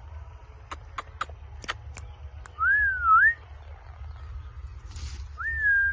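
Parrot whistling: a clean whistle that rises, dips and rises again, then a second rising whistle near the end. A quick series of about six sharp clicks comes before them, and there is a short hiss.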